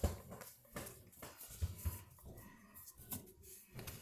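Faint irregular clicks and rustles of baseball cards being handled and flipped through by hand.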